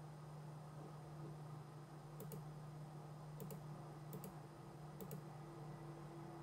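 Computer mouse button clicked four times, each click a quick press-and-release pair, starting about two seconds in and about a second apart, over a steady low hum.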